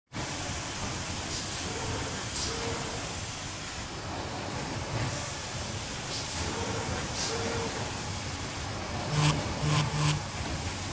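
Automatic sheet-feeding and edge-alignment machine line running: a steady mechanical noise with short air hisses every second or so, and three louder short blasts near the end.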